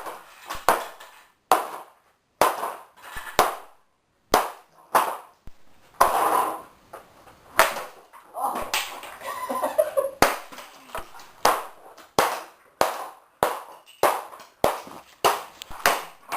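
Repeated hard blows striking a vacuum cleaner as it is smashed apart, two dozen or so sharp bangs, each with a short ring, about one every half second to second. A denser rattling clatter comes between about six and ten seconds in.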